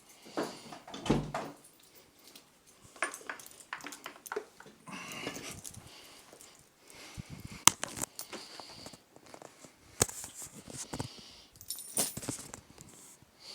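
Scattered clicks, knocks and short rustles of a dog moving about a small room, with a light metallic jingle among them. The sharpest click comes about two thirds of the way in.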